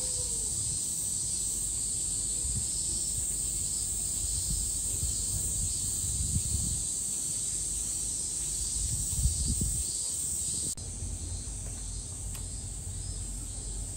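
Cicadas buzzing steadily in a high chorus, with a second call pulsing at an even beat beneath it. Irregular low rumbles of wind on the microphone run under it and drop away suddenly about eleven seconds in.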